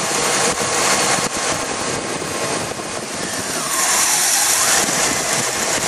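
Oldsmobile 307 V8 running at idle just after a cold start, under a steady hiss that grows louder a little past halfway.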